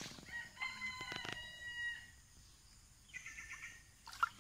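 A rooster crowing once, a single held call of about a second and a half, with a shorter call about three seconds in. A brief sharp splash from the water near the end is the loudest sound.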